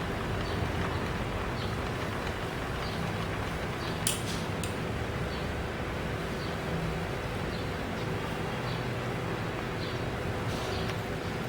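A drilling machine running steadily with a low hum and faint regular ticking, with a sharp click about four seconds in and a second one half a second later.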